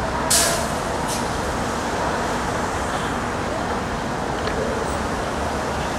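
Steady road traffic noise from cars and a bus driving past on a multi-lane road. A short sharp hiss comes about a third of a second in, and a fainter one about a second in.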